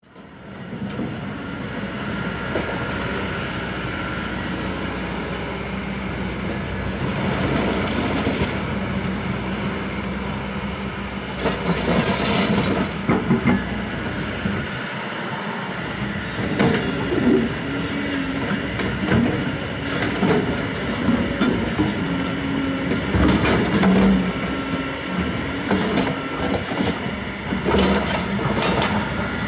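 Kobelco SK200 hydraulic excavator's diesel engine running steadily under working load, with repeated clanks and scrapes of steel on river rocks as it digs, thickest in the second half.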